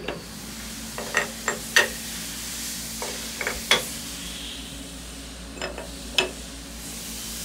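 Aluminium fixture blocks and clamps being set down and seated on a dowel-pinned aluminium fixture plate: about ten sharp metal clinks and taps in small clusters, over a steady hiss.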